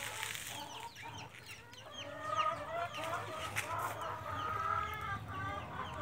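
Backyard birds calling: many short, quick chirps throughout, joined about two seconds in by a louder, wavering call that repeats to the end.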